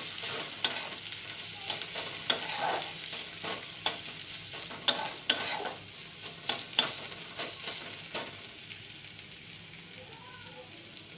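Chopped onion, garlic and ginger sizzling in hot oil in a kadai, being stirred, with the utensil scraping and knocking against the pan. The knocks stop about eight seconds in, and the sizzling goes on more quietly.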